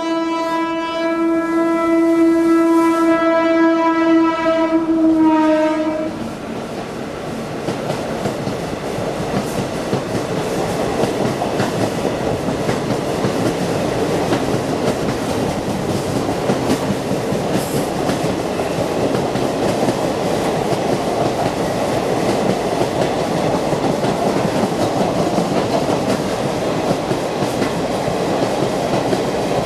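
Indian Railways train sounding a long single-note horn for about six seconds, the pitch dropping slightly as it cuts off, then the long 23-coach train running through at speed, its wheels clattering over the rail joints with a steady rumble.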